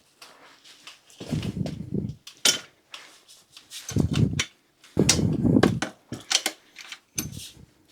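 Irregular clanks, knocks and rattles of a folding e-bike's metal frame being handled, in a string of separate bursts.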